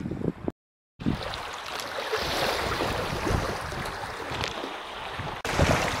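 Wind buffeting the microphone over small waves washing into the shallows at a pebble shore. The sound breaks off completely about half a second in and changes abruptly to a louder rumble near the end.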